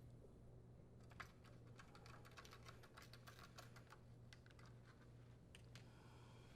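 Faint, irregular clicking of a Phillips screwdriver driving a screw that secures a new oven door hinge in the door's side rail.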